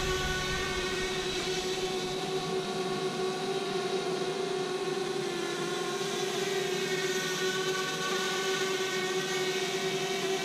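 DJI Spark quadcopter drone in flight, its propellers giving a steady buzzing whine with a clear pitch that wavers slightly as the drone is steered by hand gestures.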